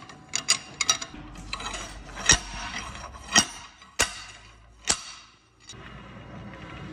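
Several sharp metallic clinks and taps, roughly a second apart, from a steel tool and fittings being handled against a swing bearing ring.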